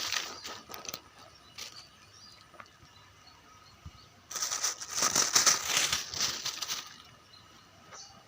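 Crinkly rustling handling noise: a short burst at the start, then a louder, denser one lasting about two and a half seconds past the middle.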